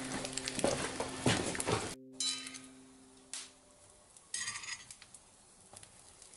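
Utensil scraping and clinking against a hand-forged skillet during cooking, busiest in the first two seconds. After about two seconds there are only a few short, fainter scrapes.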